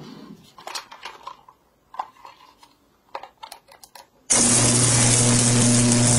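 Light clicks of plastic being handled. A little after four seconds in, a small electric screwdriver motor starts with a steady hum and runs loudly to back out the battery-cover screw of a plastic toy.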